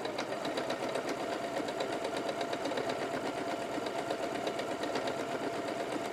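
Pfaff Ambition 610 sewing machine running steadily at a rapid, even stitch rate while stitching out a decorative loop-the-loop quilting stitch.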